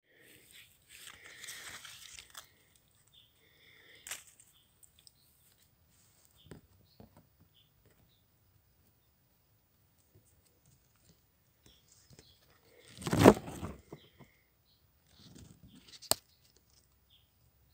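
Leaves and stems rustling and crackling as a hand handles plants close to the microphone. A louder crackle comes about two-thirds of the way through, and a sharp click comes near the end.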